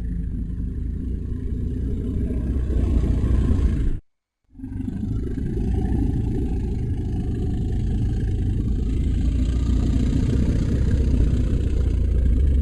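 Sound-effect call made for the extinct brontothere Embolotherium: a deep, drawn-out call that stops about four seconds in, then a second, longer call that starts half a second later.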